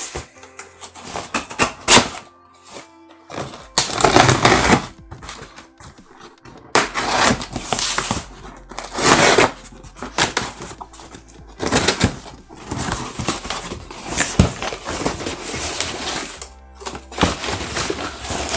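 Packing tape being ripped off a cardboard parcel and the box flaps torn open: a series of noisy ripping and scraping bursts of tape and corrugated cardboard, with a sharp snap about two seconds in.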